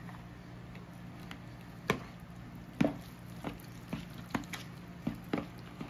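A fork clicking and tapping irregularly against a plastic mixing bowl as it works through raw ground-meat meatloaf mixture, over a faint steady hum.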